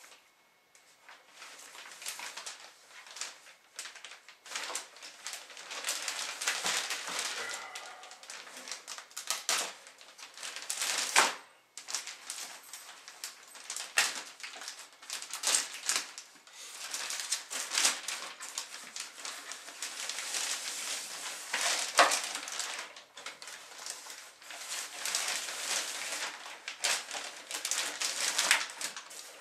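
Clear plastic bag crinkling and rustling in irregular spells as a foam model-plane fuselage is worked out of it, with a few sharper crackles.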